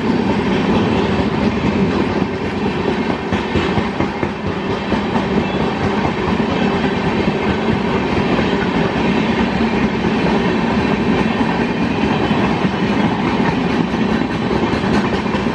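Indian Railways express passenger train, the Grand Trunk Express, with its coaches rolling past at speed: a loud, steady rumble of steel wheels on the rails, with a rapid clickety-clack as the wheels cross the rail joints.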